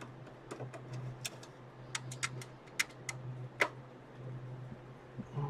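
Irregular sharp clicks and light metallic taps from the parts of a desktop PC being handled and taken apart by hand, over a steady low hum.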